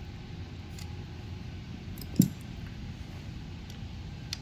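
An Allen key working on the handlebar control fasteners: a few small clicks and one sharper knock about two seconds in, over a steady low hum.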